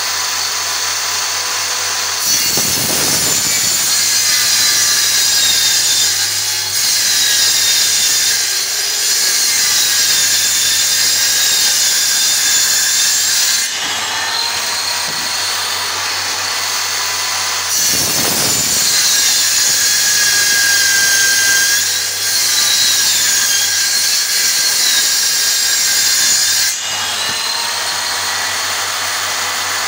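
Circular saw mounted upside down under a bench as a table saw, running steadily with a whine. It cuts laminated particleboard in two long passes, from about two seconds in to about fourteen and from about eighteen to twenty-seven seconds. The pitch dips as the blade takes the load at the start of each cut.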